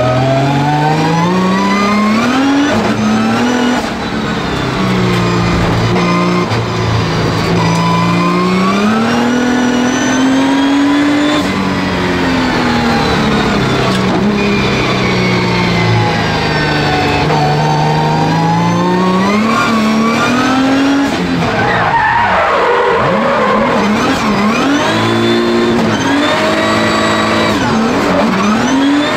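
Nissan R35 GT-R VR38DETT twin-turbo V6, tuned to about 800 hp, in a drifting Nissan 200SX S13, heard from inside the caged cabin: the revs sweep up and down again and again as the throttle is worked through the drifts. About three-quarters of the way through, the engine note turns into a flurry of rapid, choppy rev changes before settling back into long rises and falls.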